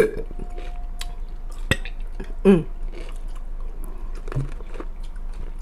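Close-up wet chewing of a pickle, with sharp mouth clicks and smacks, and one short vocal sound about halfway through.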